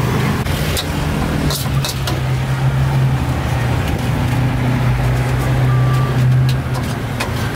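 A motor vehicle's engine running steadily close by, an even low hum that stops near the end, over street traffic noise, with a few sharp clicks in the first two seconds.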